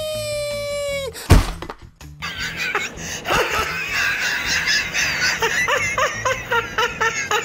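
A held high tone cuts off about a second in, followed by one loud crash. After it comes a long stretch of laughter from many voices.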